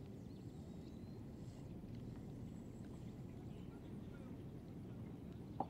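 Faint, low background rumble with no speech, broken by one brief short sound near the end.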